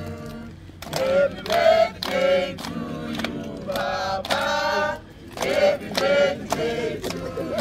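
A group of men and women singing a birthday song together without accompaniment, with hand claps.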